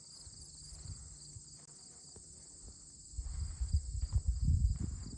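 Insects chirping in a steady, high, pulsing drone. An uneven low rumble joins about three seconds in and grows louder.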